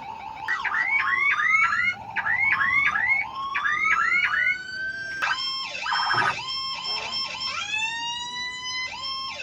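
Starling (jalak) mimicking a police escort siren: runs of quick rising whoops, about four a second, then longer rising wails that level off and hold, broken by a brief harsh chatter about six seconds in.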